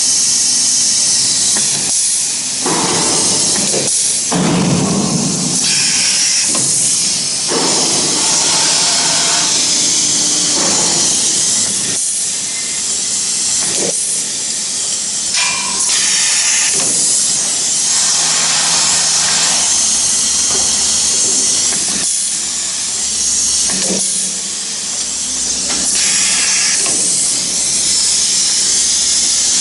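CNC router with an automatic tapping head running: a loud, steady, high-pitched hiss of machine and air noise that changes character every few seconds.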